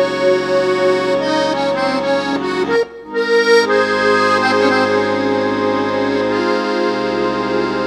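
Accordion playing long held chords over sustained bass notes, breaking off briefly about three seconds in before the chords resume.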